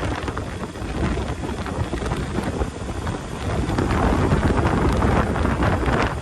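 Wind buffeting the microphone of a motorcycle being ridden at speed, with the bike's engine and road noise underneath. The rush grows a little louder about two-thirds of the way through.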